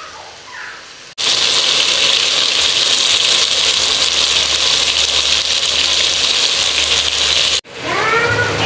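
Tomato gravy sizzling steadily in a pot as it is stirred with a wooden spoon, starting and stopping abruptly about a second in and near the end. Then water runs into a plastic cup, its pitch rising as the cup fills.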